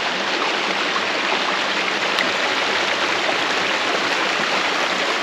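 Creek water running over rocks, a steady rushing sound.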